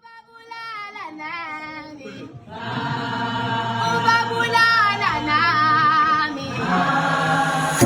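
Background music with choir-like singing voices, starting suddenly and growing fuller about two and a half seconds in.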